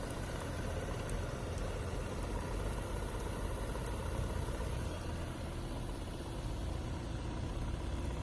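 Small DC motor of a homemade thermocol boat running steadily, over a heavy low rumble.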